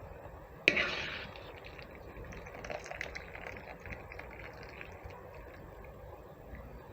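A sharp knock under a second in, followed by faint trickling and dripping of water from freshly drained macaroni.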